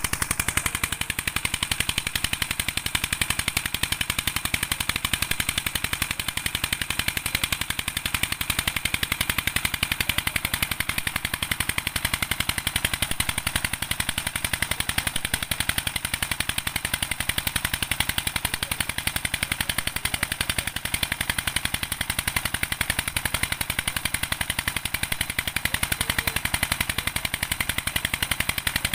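Small stationary single-cylinder diesel engine running steadily at a fast, even chug, driving a tube-well pump.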